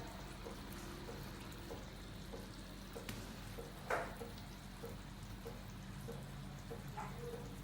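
Faint steady sizzling of a spice paste cooking with coconut milk in a pan, with a light knock about four seconds in and another near the end.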